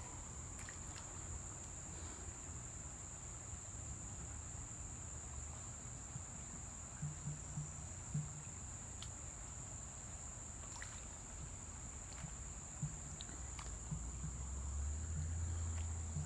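Insects singing in a steady, unbroken high-pitched drone, over a low rumble that grows louder near the end, with a few faint light clicks.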